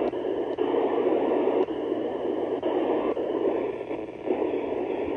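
FM receiver hiss and static from an Icom IC-705 transceiver's speaker, tuned to the International Space Station repeater downlink on 437.800 MHz. The satellite's signal is fading into noise as the station passes out of range.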